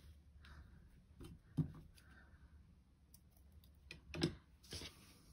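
Hand-sewing: a faint rustle and soft hiss of a needle and thread drawn through layered cotton and wadding, with light clicks and two sharp knocks, about a second and a half in and about four seconds in.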